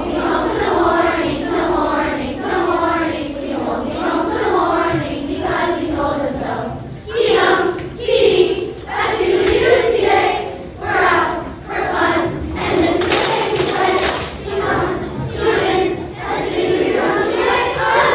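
A large group of children singing together as a choir.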